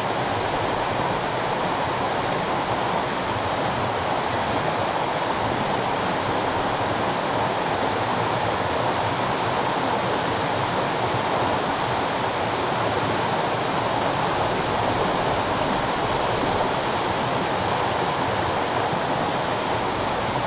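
Steady rush of river water pouring through a mill pond dam and churning white below it.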